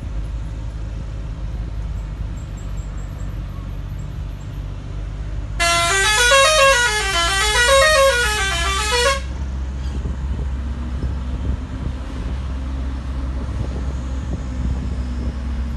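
Bus engine running steadily, with a musical horn sounding for about three and a half seconds near the middle, its notes stepping up and then down twice in a rising-falling tune.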